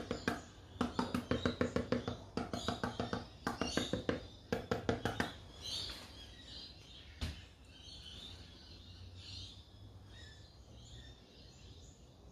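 A quick, even run of sharp taps, about five a second, for the first five seconds, then faint birds chirping in the background with one click in between.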